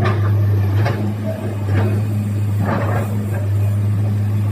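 Excavator engine running steadily with a low, even hum, and a few short noisy bursts over it.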